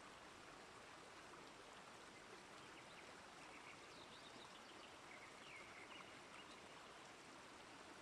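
Faint, steady rush of falling water from a waterfall, with a few short high chirps about halfway through.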